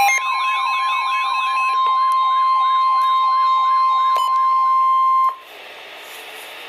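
NOAA Weather Radio warning alert tone, a steady high tone near 1 kHz, with a warbling alarm sweeping about three times a second over it. Both cut off suddenly about five seconds in, leaving quieter radio hiss.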